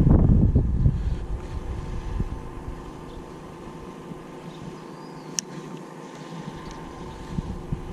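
Wind buffeting the microphone, strongest in the first second and easing off, over a steady low hum. A single sharp click about five seconds in.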